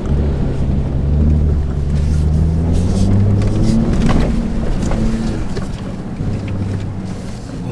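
Ford F-150 Raptor pickup's engine revving hard under load while pushing through deep snow. It climbs in pitch over the first few seconds, then eases off about five seconds in, with a sharp knock near the middle.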